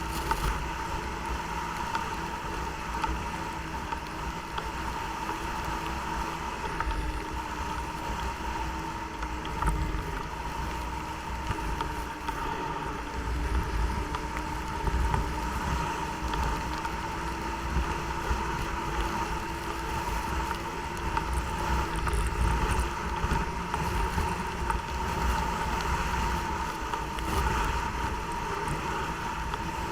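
Snowmobile running at a steady cruising speed: an even engine and drivetrain drone with a constant whine, over low rumble and wind noise.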